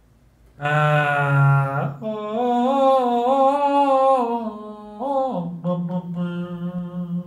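A man chanting long held tones like a meditation 'om', in three long notes, the last one lower.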